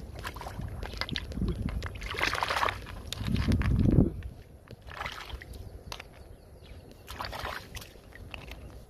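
Hands sloshing and splashing in shallow muddy water while picking up large snails, with scattered small knocks. The bursts come irregularly, and the loudest comes about three to four seconds in.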